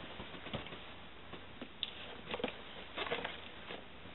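Cardboard shipping box holding the new laptop screen being handled: a handful of faint, scattered taps, scrapes and rustles.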